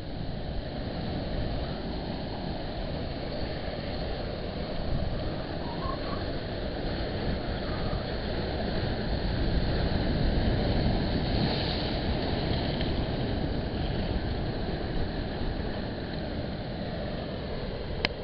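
Surf breaking and sea water rushing over rocks, a steady wash that swells about halfway through as a wave breaks into spray, with a single click near the end.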